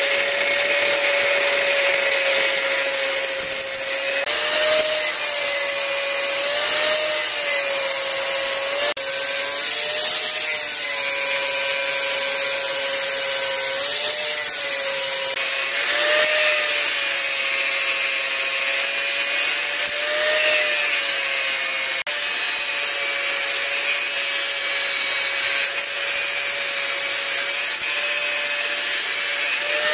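Electric grinder with an abrasive wheel grinding and cutting the steel of a motorcycle brake disc. The motor's steady whine wavers in pitch now and then as the wheel is worked against the metal, over a hiss of grinding.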